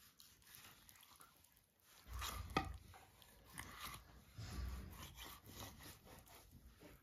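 Kitchen knife cutting raw chicken breast on a wooden cutting board: faint slicing and scraping, then irregular dull knocks of the blade against the board, with one sharp click about two and a half seconds in.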